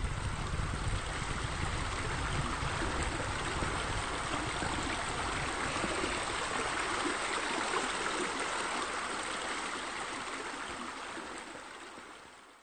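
Steady rushing of flowing water, as of a spa spilling into a pool, fading out over the last couple of seconds.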